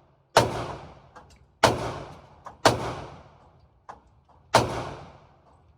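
Four gunshots at irregular intervals of about one to two seconds, each followed by a long echoing decay, with a few fainter sharp clicks between them.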